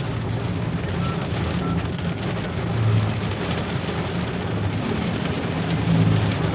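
Steady road noise of vehicles in motion, a low engine rumble that swells louder about three seconds in and again near the end.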